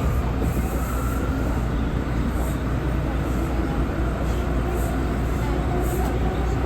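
R179 subway car running at speed, heard from inside the car: a steady rumble of wheels on rail, with a faint motor whine rising slightly in pitch near the end.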